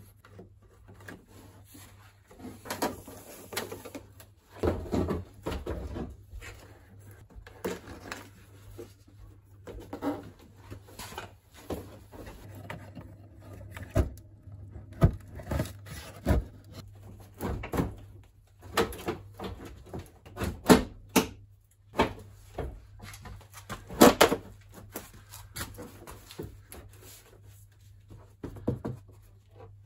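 Hard plastic car trim being handled and fitted, the plastic inner wheel-arch liner and body panels knocking, clicking and scraping as they are pushed into place. The knocks come at irregular intervals over a faint steady low hum.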